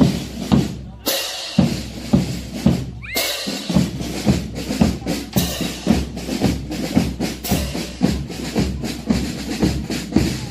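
Drums beating a steady march rhythm, about two strokes a second.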